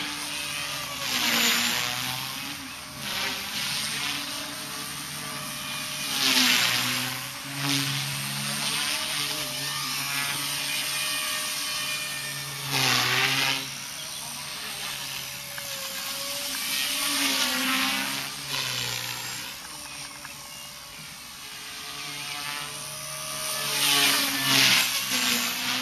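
Align T-Rex 250 electric RC helicopter in flight: the motor and rotor hum and whine, their pitch rising and falling as it manoeuvres, swelling louder several times.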